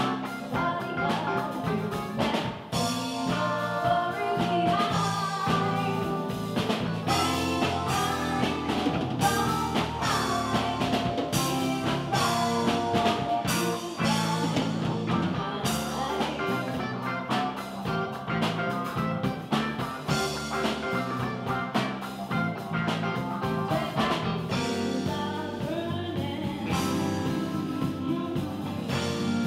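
A live funk band playing: electric bass, keyboards and drum kit, with a woman singing lead.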